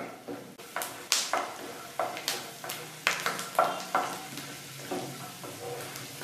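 Peanuts frying in hot oil in a frying pan and stirred with a spatula: scraping strokes of the spatula across the pan, about two a second, over a light sizzle.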